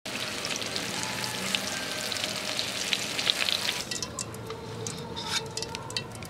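Breaded fish pieces deep-frying in hot oil in a metal wok, stirred with a utensil: a dense sizzle full of crackling pops. About four seconds in the sizzle drops away, leaving scattered small clicks.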